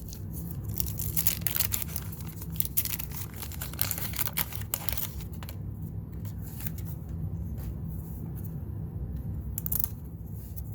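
Wax-paper wrapper of a trading-card pack being torn open and crinkled, with stiff sticker cards handled. The crackling is densest for the first few seconds, with one more short rustle near the end.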